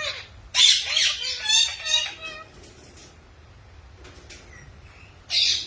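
Parrot giving a string of harsh squawks and chattering calls for about two seconds, starting about half a second in, with another short harsh squawk near the end.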